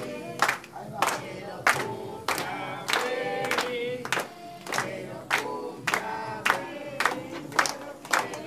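A small group of people singing a birthday song together while clapping along in steady time, a clap about every half second.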